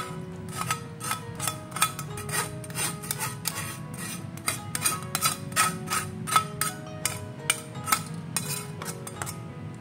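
Repeated scraping strokes against a wire mesh strainer, about two to three a second, as thick spice paste is pressed through it, over soft background music.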